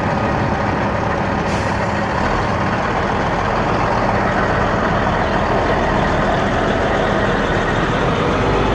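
Heavy truck engine running steadily, with a short hiss about a second and a half in.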